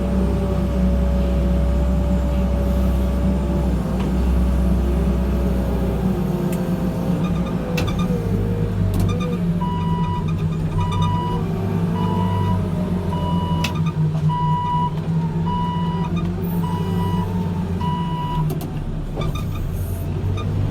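Backhoe loader's diesel engine working under load, its note changing a few seconds in. From about halfway through a reversing alarm beeps steadily, roughly once a second, about eight times, then stops.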